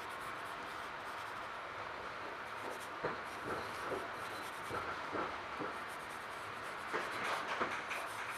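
Pencil scratching on sketchbook paper in a string of short, irregular strokes from about three seconds in, over the steady hiss and rumble inside a moving commuter train car.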